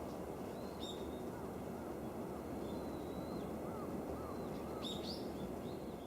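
Outdoor ambience: a steady low rush of background noise with small birds calling, soft chirps throughout and a brief cluster of sharper high calls about five seconds in.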